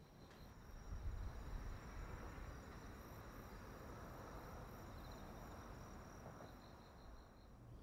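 Faint night ambience of insects trilling steadily, with a low rumble underneath that swells about a second in.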